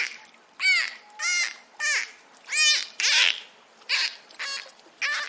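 Dolphin squeaks and whistles: a quick series of high, chirpy calls, each bending up and down in pitch, about one every half second or so, with a short rapid buzzy run of pulses near the end.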